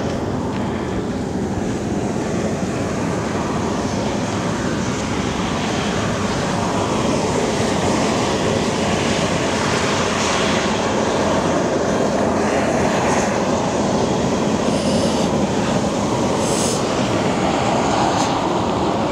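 Steam jetting from geothermal vents and fumaroles in a steady, loud rushing roar that grows a little louder partway through.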